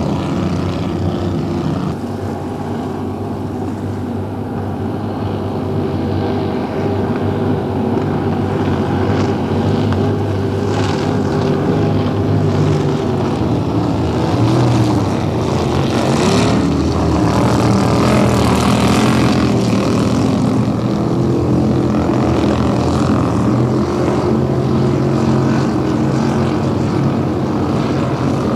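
Racing powerboat engines running at high speed, several engines droning together, with one sweeping down then up in pitch about halfway through as a boat passes.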